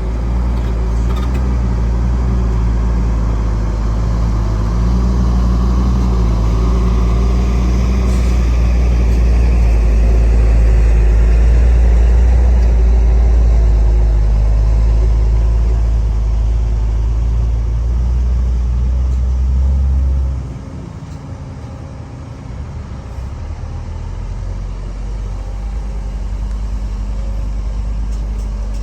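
Heavy diesel engine of earthmoving machinery running with a deep, steady rumble. About twenty seconds in, the rumble drops off sharply and the engine runs on more quietly.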